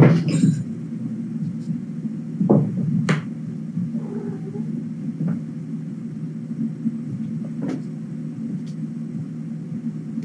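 A steady low room rumble, with a few soft thumps from kittens playing and pouncing on the wooden floor, the loudest right at the start.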